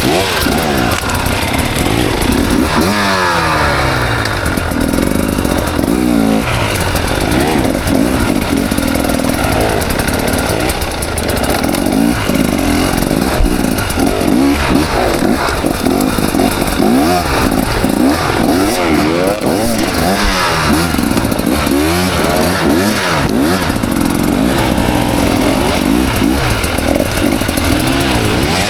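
KTM 300 XC two-stroke dirt bike engine revving up and down constantly under throttle as it climbs rough singletrack, pitch rising and falling every second or so.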